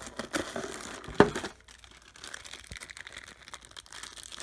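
Plastic packaging crinkling as accessories are handled, busiest in the first second and a half, with one sharp click about a second in, then fainter crackling.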